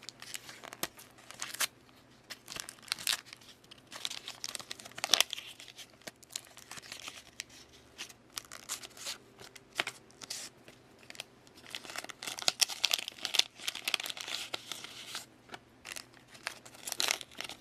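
A foil sticker pack being torn open and its wrapper crinkled, with the stickers slid out and handled: irregular bursts of tearing and crackling, busiest around a third of the way in and again past the middle.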